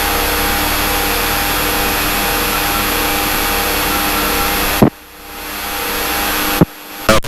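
Steady, loud cabin noise of a Cessna's piston engine and propeller running. About five seconds in it cuts off abruptly with a sharp click, and a few more sharp clicks follow near the end.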